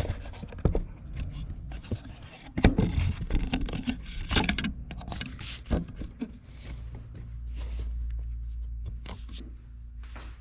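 Irregular knocks, clicks and scraping handling noises, with a steady low hum coming in about two-thirds of the way through.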